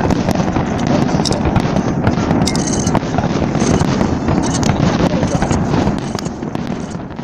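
Fireworks going off close by: a dense, loud run of rapid pops and crackles that eases a little about six seconds in.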